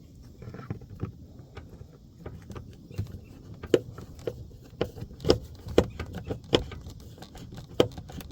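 Irregular sharp clicks and taps from hand work on a vehicle door panel as its screws are put back in; there is no steady motor tone.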